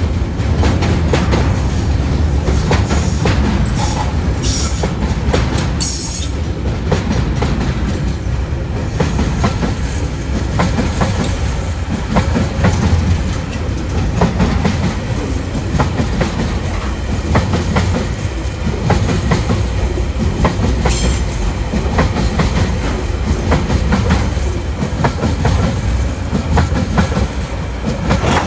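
Container flat wagons of a freight train rolling past close by: a steady low rumble with wheels clicking over the rail joints. Brief high wheel squeals come a few seconds in and again about two-thirds of the way through.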